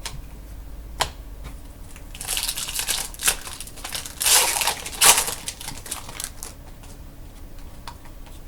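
Trading cards and pack wrappers being handled: a couple of sharp clicks, then several bursts of crinkling and rustling as cards slide against each other and the wrapper.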